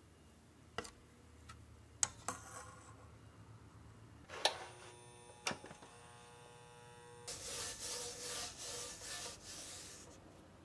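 A few sharp clicks and knocks, one followed by a few seconds of metallic ringing, then a paper towel held in chopsticks rubbing oil across the metal griddle of an electric hot plate for a couple of seconds.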